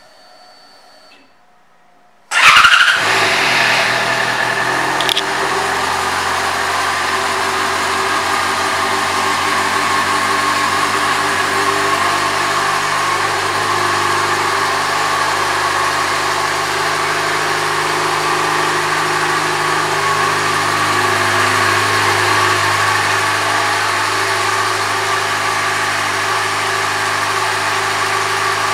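A 2009 Yamaha FZ6R's 600 cc inline-four engine starts about two seconds in and settles into a steady idle.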